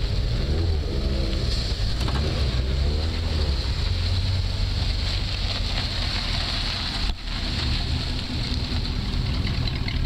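Buick 455 cubic-inch V8 idling with a steady low rumble.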